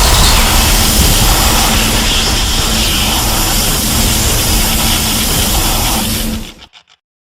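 A King Ghidorah monster sound effect from the 2001 Godzilla film: a loud, dense rushing noise with a deep rumble and a steady low hum underneath, cutting off about six and a half seconds in with a few fading echoes.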